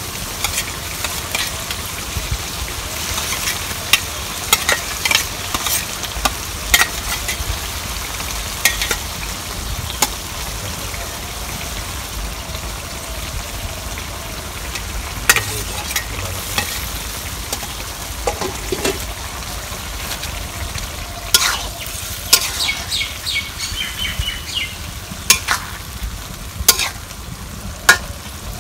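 Bottle gourd and fried tilapia sizzling in a wok over a wood fire, a steady hiss with sharp clinks now and then from a metal spoon and spatula striking the pan as the fish is added and stirred.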